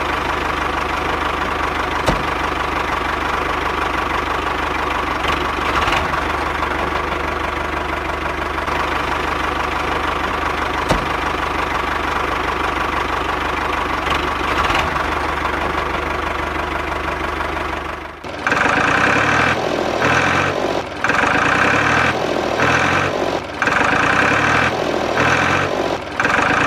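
Diesel tractor engine idling with a steady knock. About eighteen seconds in it gives way to music with a regular beat.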